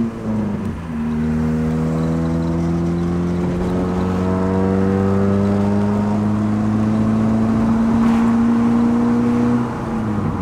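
A straight-piped Honda VTEC four-cylinder with 2.5-inch exhaust piping, pulling hard under acceleration, heard from inside the cabin. The engine note dips about half a second in, then climbs slowly and steadily in pitch for several seconds before falling away near the end as the throttle comes off.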